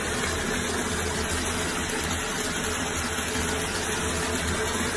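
Bathtub spout running, water pouring steadily into the tub with a low hum underneath.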